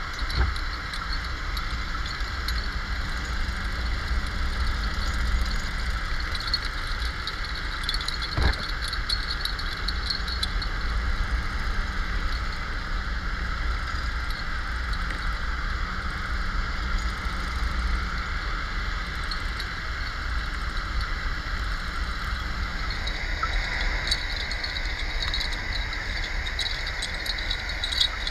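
Underwater noise picked up by a camera on a towed bottom-trawl net: a steady low rumble and hiss of the net moving through the water. There are two sharp knocks, one at the start and one about eight seconds in, and a faint crackling that grows louder near the end.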